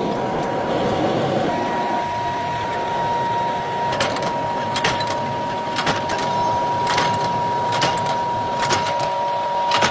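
A workshop machine running steadily, with a high steady whine that starts about a second and a half in and sharp ticks about once a second from about four seconds in.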